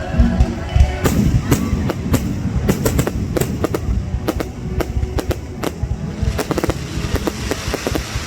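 Fireworks going off in a fast run of sharp cracks and bangs, growing denser in the second half, with music playing underneath.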